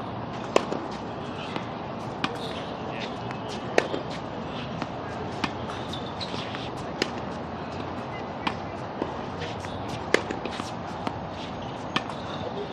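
Tennis ball being hit back and forth in a groundstroke rally: sharp pops of racket on ball about every one and a half seconds, some louder than others, over a steady outdoor hiss.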